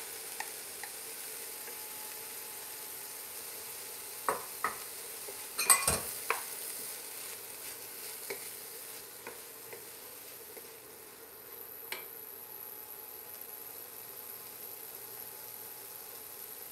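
Diced tomatoes, carrot, poblano and onion sautéing in oil in a skillet with a steady sizzle. A wooden spoon stirs and knocks against the pan in a cluster of strokes about four to six seconds in, the loudest near six, with a few lighter knocks later.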